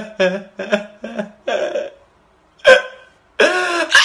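A man's voice in short, choppy cries: four quick ones, a longer one, then a loud sharp yelp about two and a half seconds in and a final drawn-out wail.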